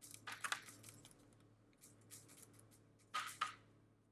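Faint short scrapes and taps of a wooden spoon handle pressed into soft cookie dough on a bare metal baking sheet, in three brief clusters, the loudest about three seconds in.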